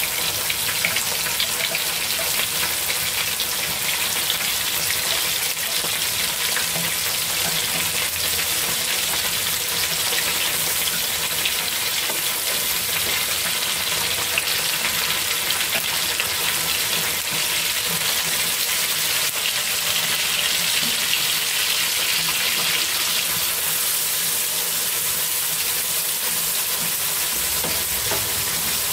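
Chunks of pork sizzling steadily as they fry in oil in a nonstick wok, turned now and then with wooden chopsticks.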